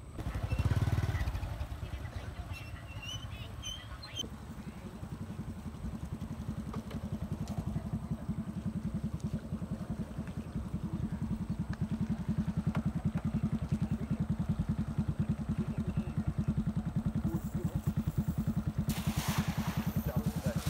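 A small engine running steadily with a fast, even pulse, growing louder over the first dozen seconds. Near the end a cast net splashes down onto the water.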